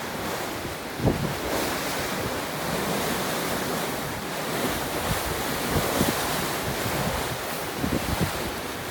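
Strong wind and rain in a storm: a steady rushing hiss, with gusts buffeting the microphone in short low thuds about a second in and several times near the end.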